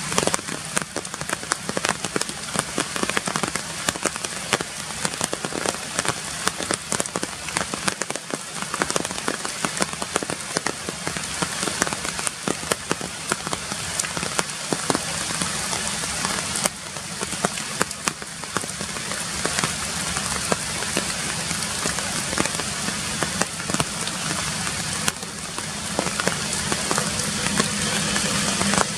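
Rain falling on the forest canopy: a steady hiss of rain hitting leaves, with many individual drops heard as sharp ticks.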